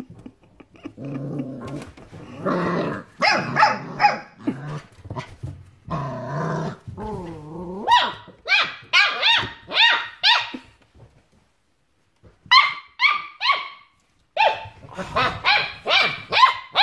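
Six-week-old border collie puppies play-fighting: low growls in the first few seconds, then runs of short, high-pitched yapping barks, several a second, broken by a brief pause about two-thirds of the way through.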